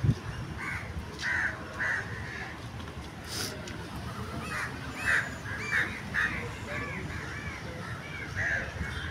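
Crows cawing repeatedly, a string of short calls that come closer together in the second half, over a steady low rumble.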